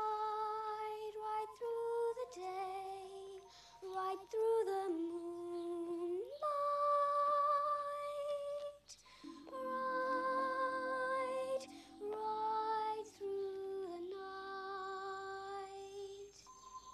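A high solo voice singing a slow melody in long held notes, phrase by phrase with short pauses between.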